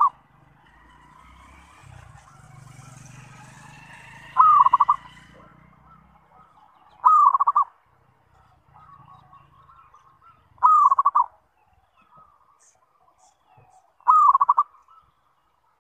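Zebra dove (perkutut) cooing: four calls about three to four seconds apart, each a short falling note that runs into a quick rolling trill.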